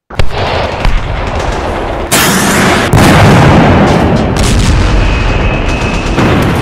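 Battle sound effects: gunfire and heavy explosions that burst in suddenly out of silence, with sharp shots over a continuous low rumble, loudest around two and three seconds in.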